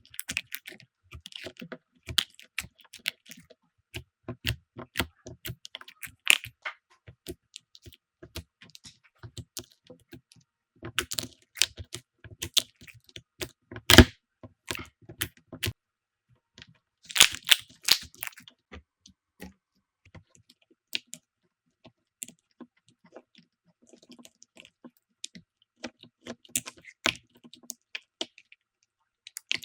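Slime being squeezed and pressed by hand, giving irregular sticky clicks and small pops. There is one sharp snap about fourteen seconds in, and a dense run of crackles a few seconds later.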